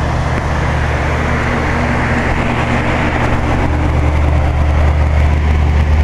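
2011 Aire-Flo 13 SEER heat pump outdoor unit running steadily in heat mode: a constant compressor hum under the rush of its condenser fan.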